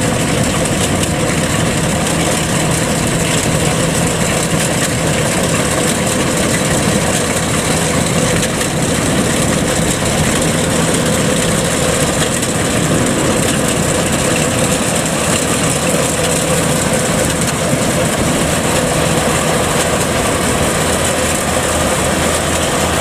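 Kubota DC-105X combine harvester running steadily under load, its diesel engine and threshing machinery working as it cuts flattened rice while crawling through floodwater.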